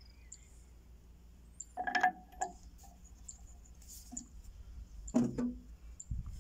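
Metal parts knocking as a ring and a splined coupling are fitted by hand over the splined shaft of a HAMM 311 roller's axle housing: two short clinks, about two seconds and about five seconds in, the first with a brief ringing tone.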